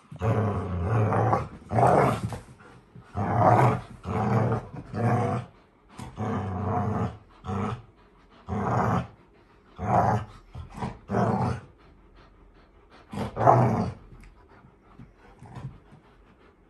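Dogs play-growling during a tug of war over a plush toy, in repeated bursts of about a second each. The growls stop about fourteen seconds in.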